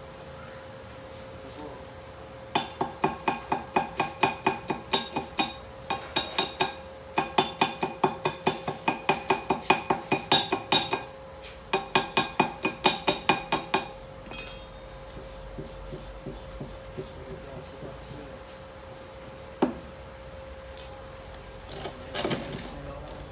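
Hammer rapping on steel, most likely a chipping hammer knocking slag off a stick weld, in three runs of quick ringing strikes at about four a second, with a few single knocks afterwards.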